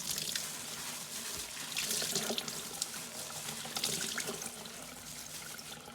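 Tap water running into a sink and splashing, louder for stretches a couple of seconds in and again about four seconds in: tie-dyed fabric being rinsed to wash out the excess dye.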